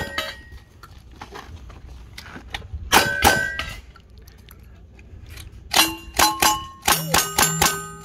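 Gunshots from a lever-action rifle, each followed by the ring of a hit steel target: a pair about three seconds in, then a fast string of about six shots roughly a third of a second apart near the end.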